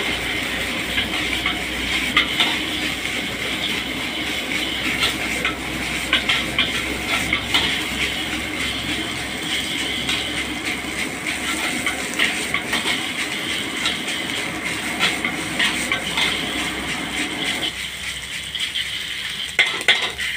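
Fried rice sizzling in a wok over a gas burner, with a metal ladle scraping and clanking against the pan again and again as it is stirred and tossed. The lower rushing noise drops away near the end, leaving the sizzle and the ladle strikes.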